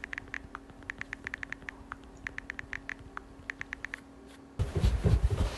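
Smartphone keyboard click sounds as a message is typed quickly with the thumbs: a run of rapid, irregular small ticks for about four seconds. The ticks stop, and from about four and a half seconds in a louder rustling and shuffling noise follows.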